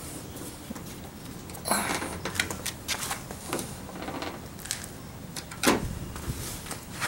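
Plastic side marker lamp housing of a 1996 Toyota 4Runner being pried by hand against its retaining clips, giving scattered plastic clicks and knocks. The loudest comes about two seconds in, and another near six seconds.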